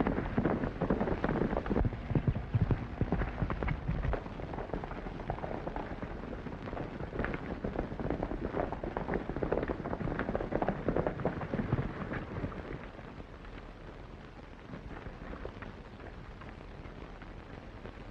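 Hooves of several galloping horses pounding on dirt in a dense, uneven patter. The patter is loudest at the start and fades after about twelve seconds.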